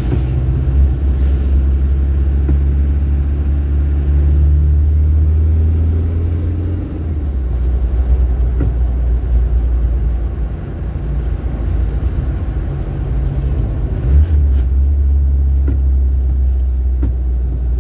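Turbo-diesel vehicle engine running while driving along, a steady low drone. It eases off about seven seconds in and picks up again about fourteen seconds in.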